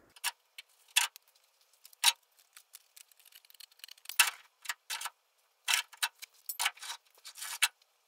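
Hand snips cutting a shape out of a small sheet-steel repair piece: a string of short, sharp, irregularly spaced clicks, busiest around the middle.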